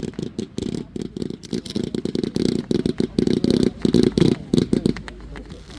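Fireworks going off in a rapid, dense stream of muffled pops and rumbles, loudest a little past the middle and thinning out near the end.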